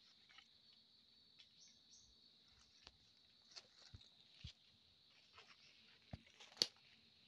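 Faint, steady high-pitched drone of forest insects, with scattered crackles and snaps of dry leaf litter and twigs underfoot and one sharper snap near the end.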